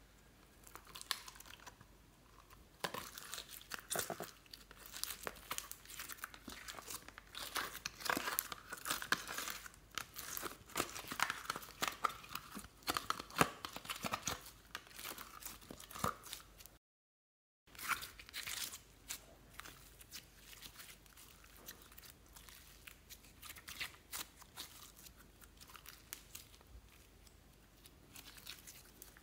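Sticky peach slime being peeled and scraped off the shiny metal inside of an eyeshadow palette and worked by hand, giving a run of small wet clicks and crackles. The sound cuts out completely for about a second just past halfway.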